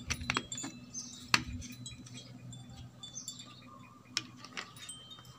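Plastic drink bottles handled and a screw cap twisted off, giving scattered light plastic clicks and crinkles, with one sharper click about a second and a half in.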